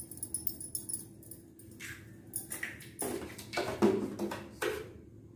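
Eggs being cracked against the rim of a stainless-steel vessel: a run of short taps and cracks of shell on metal, with a few louder knocks in the second half.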